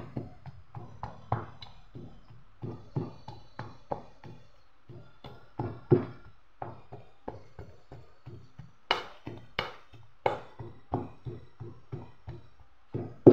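Pestle pounding boiled jackfruit seeds into chutney in a stainless steel bowl: a run of thuds, about two a second, with the steel bowl ringing lightly. The hardest strokes come about nine to ten seconds in.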